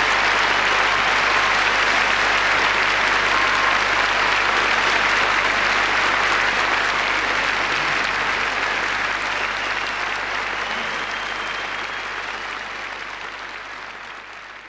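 Large concert audience applauding steadily, fading away gradually over the last few seconds.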